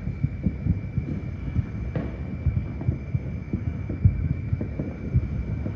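Distant fireworks bursting as an irregular run of dull, low thumps, with a sharper crack about two seconds in.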